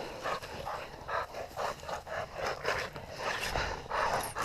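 A dog panting rapidly, short breathy puffs about three to four a second.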